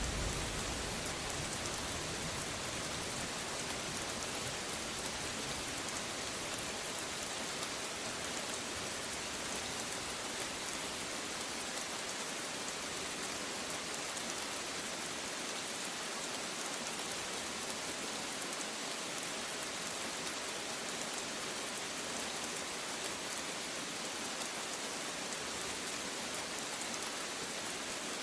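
Steady rain falling: an even hiss with fine drop ticks. A low thunder rumble fades out in the first second or two.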